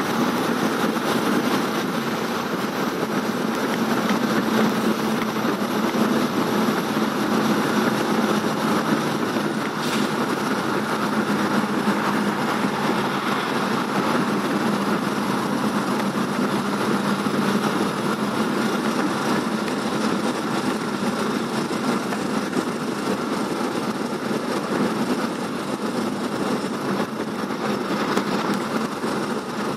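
Steady running noise of a moving vehicle heard from inside it: an even rumble and rushing, with one brief click about ten seconds in.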